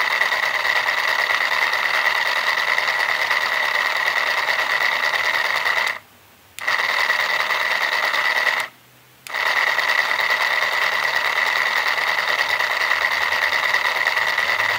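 Small motor driving a pair of 3D-printed helical gears, a steady high-pitched whir of the motor and the meshing plastic teeth; the gears are loosely aligned. The sound cuts out suddenly twice, for about half a second each, about six and nine seconds in.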